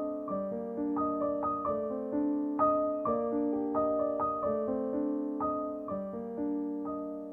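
Background piano music: a slow, gentle melody of held notes over repeating chords.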